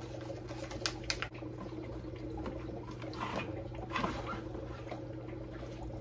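Handling noise from the plastic parts of a new canister filter: two sharp clicks about a second in, then softer scratching and rustling, over a steady low hum.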